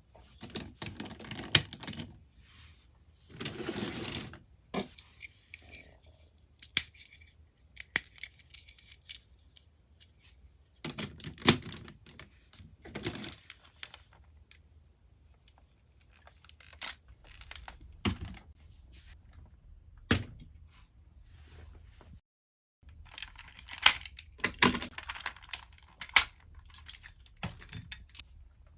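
Hard plastic parts of a combining toy robot being handled and fitted together: scattered clicks and knocks with a few short rustling bursts.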